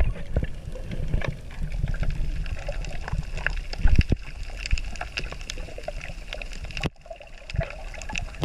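Muffled underwater water noise heard through a snorkeler's action-camera housing: a low sloshing rumble with many scattered clicks and pops. The sound dips sharply for a moment about seven seconds in.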